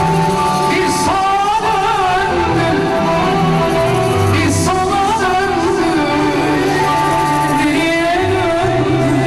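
A woman singing a Turkish pop song live into a microphone, with a band backing her; her voice slides between long held notes that waver, over a steadily moving bass line.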